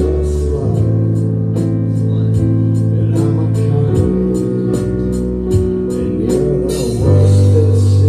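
Live band playing a rock song: bass guitar holding low notes, keyboards, and a drum kit with steady cymbal strokes. About seven seconds in the band gets louder, with a wash of crashing cymbals.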